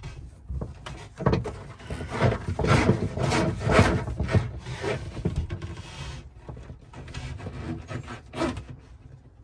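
Hand and phone rubbing and scraping against wooden cabin panels while reaching into a tight gap among cables: a run of irregular scrapes and knocks.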